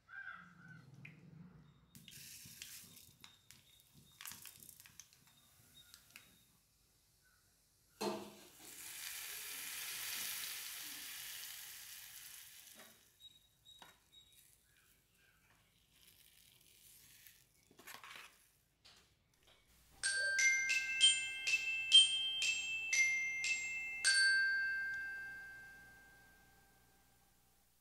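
Faint utensil knocks, then a hiss lasting about five seconds, fitting sizzling in a hot kadai. About 20 seconds in comes the loudest sound: a short melody of ringing glockenspiel-like chime notes at several pitches, the last note fading away slowly.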